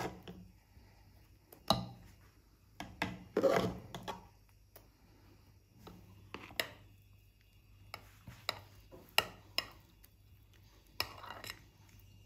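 A spoon tapping and scraping against a cut-glass bowl as thick cornmeal porridge is spooned in and spread: scattered sharp clicks and knocks with a few short scrapes.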